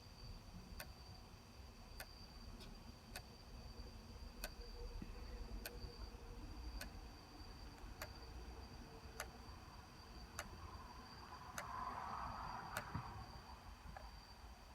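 Sony D-90 Discman portable CD player clicking: a sharp single click about every 1.2 seconds, over a faint steady high-pitched tone.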